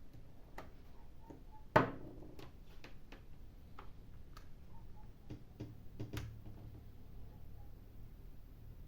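Scattered small clicks and taps of a tablet and its charging cable being handled, with one sharp knock about two seconds in, while the newly replaced charging port is tested.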